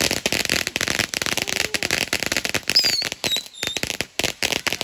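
Ground fireworks going off: a dense, rapid string of sharp cracks and pops, with a couple of short high whistles about three seconds in.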